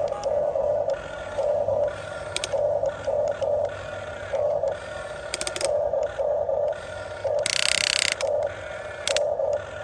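Electric motors and gearboxes of a Huina 1550 RC excavator whirring in short start-stop bursts as its parts are driven, with one louder, harsher rattling burst about three-quarters of the way through.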